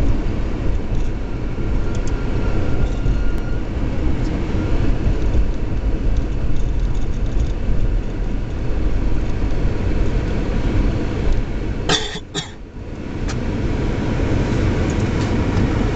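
Steady low rumble of a moving car's engine and tyre noise heard from inside the cabin. About twelve seconds in come two short, sharp sounds close together, and the rumble drops briefly right after.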